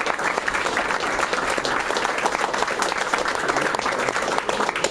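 Audience applauding: a dense, steady round of clapping from many hands.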